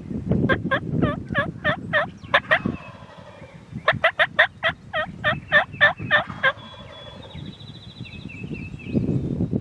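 Two runs of turkey yelping, about ten evenly spaced yelps each, roughly four a second, with a pause of about a second between the runs. Small songbirds chirp high in the background, with a short trill after the second run.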